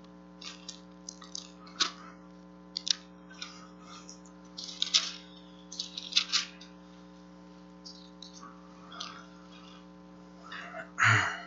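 Bible pages being turned by a congregation: scattered short papery rustles and flips at irregular intervals, over a steady electrical hum. Near the end there is one louder, short noise.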